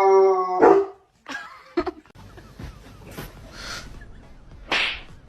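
A dog's long, steady-pitched cry at the very start, then a short bark a little under a second in; after that only quieter scattered sounds and a brief noisy burst near the end.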